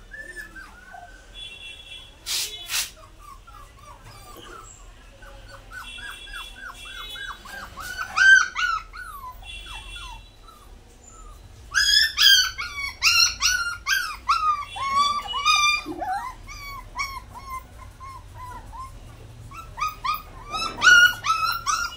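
Puppies whining and crying in runs of short, high, falling yelps, busiest about halfway through and again near the end.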